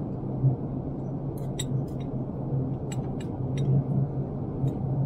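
Steady low rumble and hum of a Boeing 787 airliner cabin in flight, with several light clinks of a fork against a china bowl starting about a second and a half in.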